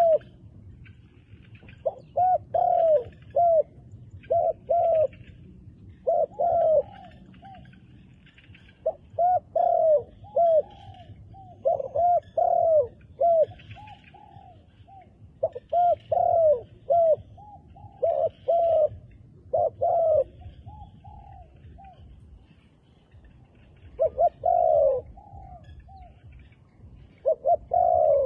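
Doves cooing: repeated phrases of short, arched coos, a new phrase every one to three seconds, with a longer pause a little after the middle.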